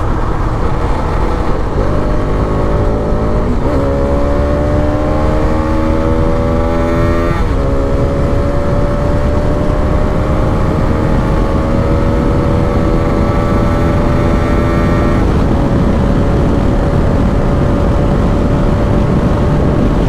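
Motorcycle engine accelerating, its note climbing and dropping back at two gear changes in the first half, then holding a steady note at cruising speed. Heavy wind rumble on the microphone from riding at speed runs under it.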